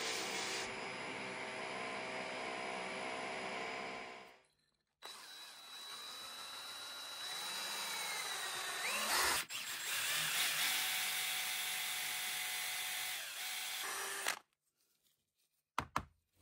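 Electric power tool motor running in short edited stretches, its pitch wavering up and down in the middle section, cutting off abruptly near the end, followed by a couple of brief clicks.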